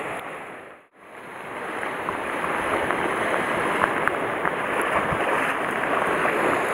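Sea surf washing and breaking against a rocky shoreline, a steady rushing noise that briefly drops out about a second in, with a few faint small ticks.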